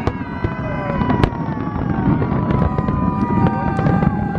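Large fireworks display: sharp cracks of shells bursting, the loudest just after the start and about a second in, over a continuous low rumble of booms. Long steady tones are held above the bangs.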